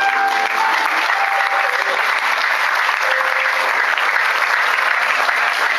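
Theatre audience applauding, a dense, steady clapping with music faintly underneath.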